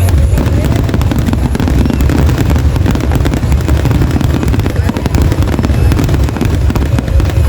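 Fireworks going off in a dense, rapid string of crackling pops and bangs over a low rumble.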